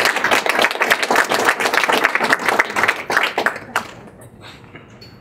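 Audience applauding with dense hand claps, dying away about four seconds in.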